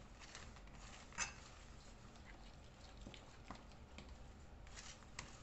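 A hand mixing thick banana bread batter in a bowl: faint, irregular sticky squelches and small clicks, the sharpest about a second in and a few more near the end.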